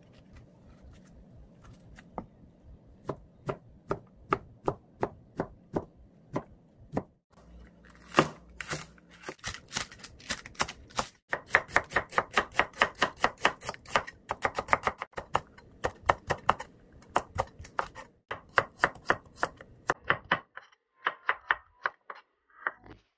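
Kitchen knife slicing fish cake, onion and garlic on a cutting board: slow, spaced strikes of the blade on the board at first, then a fast run of sharp strikes, several a second, broken by short pauses, with softer cuts near the end.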